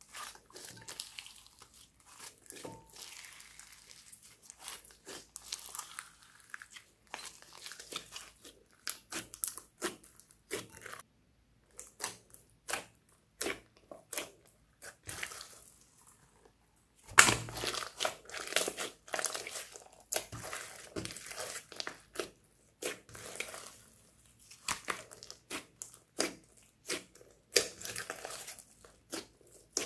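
Hands kneading and pressing a large mass of glittery slime with foam beads mixed in: wet squelches and crackling pops of trapped air, coming in irregular clusters with two short pauses, loudest a little past halfway.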